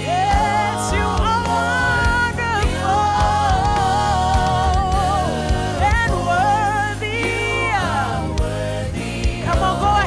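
Gospel worship music from a band, with bass and drums under a long, wavering, gliding melody line and singing.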